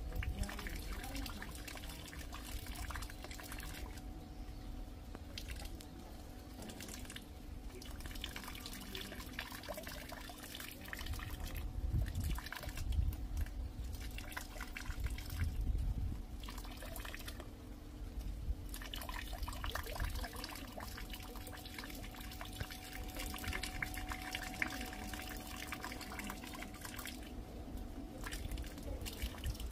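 Rain dripping and rainwater trickling, with dense, irregular drips throughout. A low rumble swells a little a third of the way through, under a faint steady hum.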